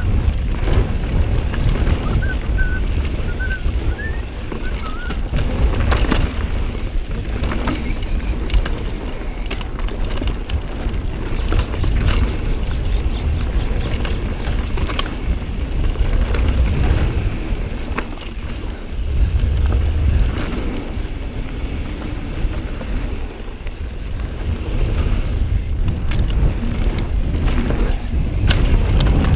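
Mountain bike descending rocky singletrack: a steady low wind rumble on the microphone with tyre noise and frequent clicks and rattles from the bike over rocks. A few short high chirps, like a bird, come in the first five seconds.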